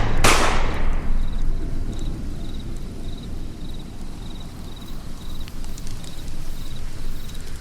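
A loud sharp crack at the very start that rings away over about a second, followed by a low rumbling noise bed with crickets chirping faintly and evenly, about two chirps a second.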